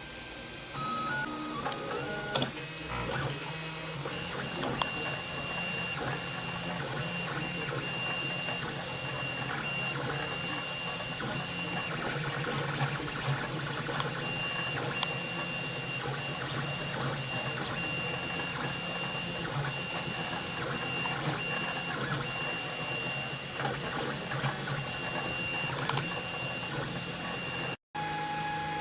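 3D printer printing a part: its stepper motors whirring and buzzing as the head moves, with a thin high whine that comes and goes. The sound cuts out briefly near the end.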